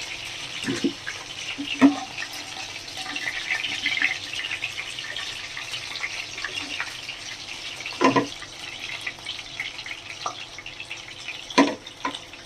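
Cornflour-coated chicken pieces sizzling and crackling steadily as they fry in hot oil, with a few sharp knocks of a utensil against the pan.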